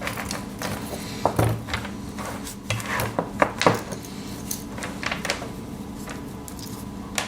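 Scattered light metal clicks and clinks as a zipper puller and Swiss Army knives are handled, the puller's metal tab knocking against the knife and its keychain ring.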